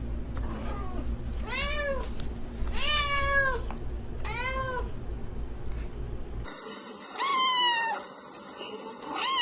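Domestic cat meowing, several separate meows that each rise and fall in pitch: three short ones, then, after the background changes abruptly, a longer meow and another starting near the end.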